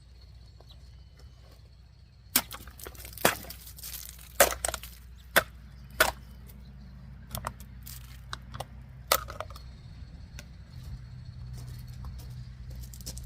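Ozark Trail utensil pocket knife's blade being put through a cutting test: a run of sharp clicks and snaps, the loudest about a second apart. They start about two seconds in and thin out after about nine seconds, over a steady low hum.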